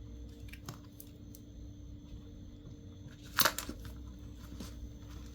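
Small handling sounds of a smartphone being pried apart: faint clicks and a short crunchy scrape about three and a half seconds in, as a glued part is worked loose without heat. A faint steady hum runs underneath.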